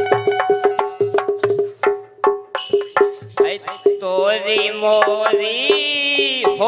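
Bundeli folk music: a plucked-string melody over quick hand-drum strokes, then about four seconds in a man starts singing a long, wavering held note.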